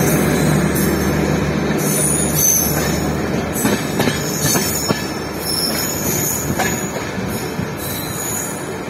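Indian Railways passenger coaches rolling past at close range: a steady wheel-on-rail rumble with a few sharp clacks over rail joints and high-pitched wheel squeals in the middle stretch. A low drone underneath fades out about two seconds in.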